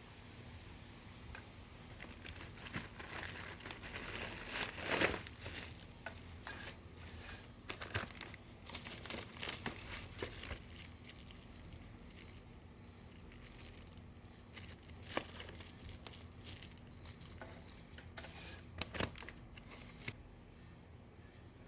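Plastic packaging crinkling and crackling in irregular spells as a boxed faucet and its parts are unwrapped.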